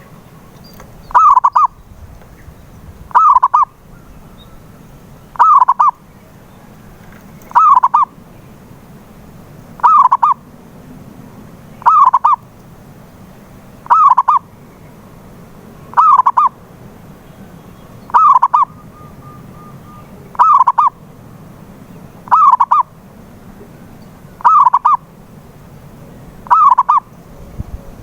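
Zebra dove (perkutut) cooing its song phrase over and over, about once every two seconds; each phrase is a quick run of rolling coos lasting about half a second.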